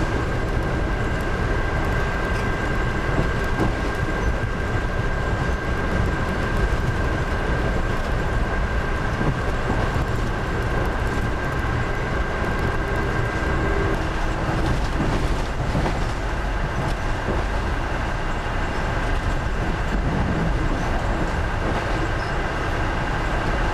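Inside an Amtrak Silver Star passenger coach under way: the steady rumble of the wheels on the track, with a thin steady whine above it.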